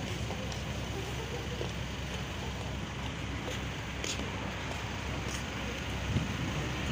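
Steady low rumble of passing road traffic with a constant background hiss and a few faint clicks.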